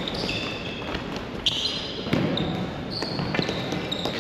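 Ball hockey play on a hard indoor floor: short high squeaks of shoes, a few sharp knocks of sticks and ball, over a low murmur of voices.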